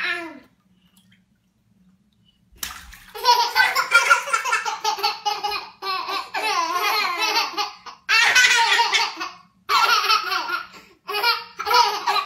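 Two babies laughing at each other in long, repeated bursts of belly laughter, starting about two and a half seconds in after a short quiet moment.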